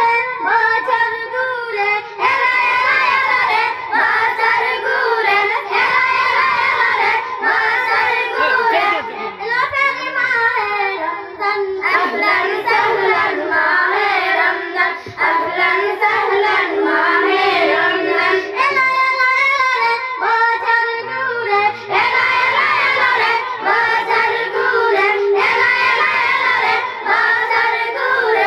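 A group of girls singing a Bengali Islamic gojol (devotional song) about Ramadan together into microphones, one melodic line held and carried on without pause.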